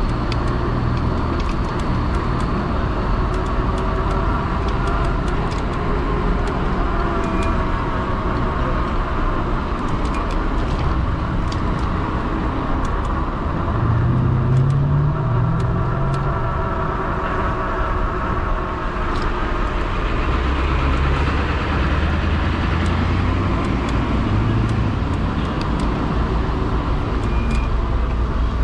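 Road traffic heard from a moving e-bike: cars going by, with a couple of louder swells as vehicles pass, over steady riding noise.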